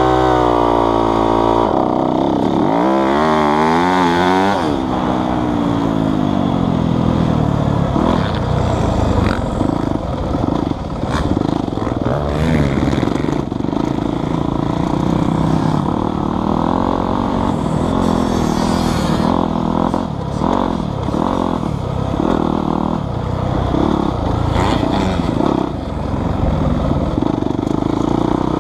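Motocross bike engine launching hard: the pitch climbs, breaks off about two seconds in at an upshift, and climbs again to another shift at about four and a half seconds. After that the engine rises and falls unevenly as the throttle is worked on and off along the dirt track.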